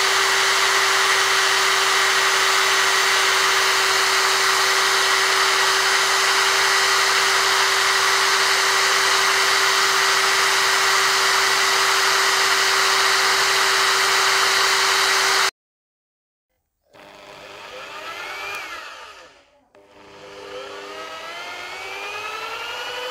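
Electric hand drill running steadily, spinning a car alternator through a drive belt, a constant whir with a steady whine. After an abrupt cut about two-thirds in, it returns quieter and speeds up with a rising pitch.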